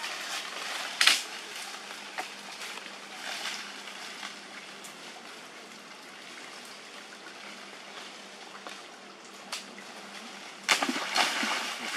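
Steady outdoor hiss with leaves and branches rustling as macaques climb through a leafy tree; a sharp rustle about a second in and a run of louder rustles and snaps near the end.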